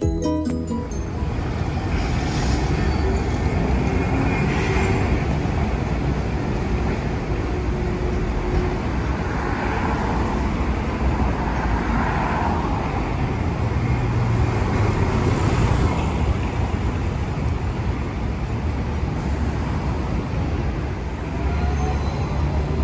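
City street traffic: cars and a minivan passing one after another over a steady hum of road noise. Near the end a rising whine comes in as a tram starts to move off.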